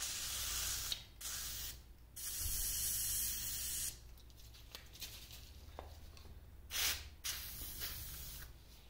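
WD-40 aerosol can sprayed through its straw into the lathe apron's bore in several hissing bursts of a second or two each. It is penetrating lubricant going down onto a seized shaft to loosen it.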